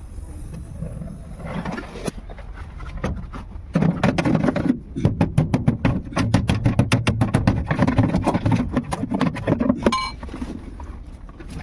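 Electric arc welding crackling, a dense run of sharp irregular pops for about six seconds starting about four seconds in, after a few fainter crackles.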